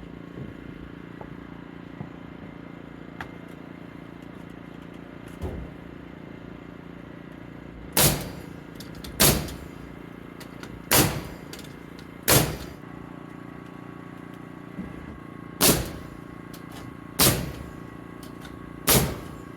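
A framing nail gun shooting nails into wooden rafters: seven sharp shots, one to three seconds apart, over a steady low hum.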